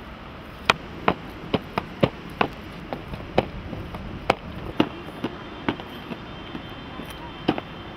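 Sharp, irregular chopping knocks, roughly two a second, of a metal cleaver blade striking and breaking lumps of red clay on a board.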